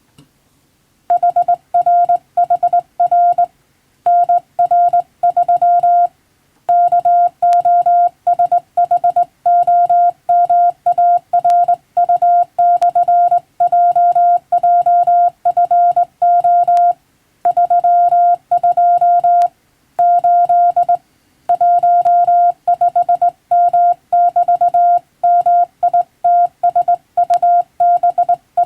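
Morse code (CW) sidetone, a single steady beep keyed on and off in rapid dots and dashes. The beeping starts about a second in and comes in groups of characters with brief pauses between words.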